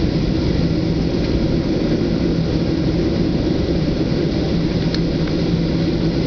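Boeing 737-700's jet engines at low taxi thrust, heard inside the cabin as a steady low rumble with an even hum.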